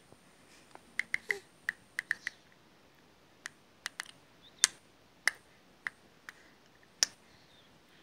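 Close-up kissing and lip smacks: a string of short, sharp smacks in irregular clusters, about fifteen in all.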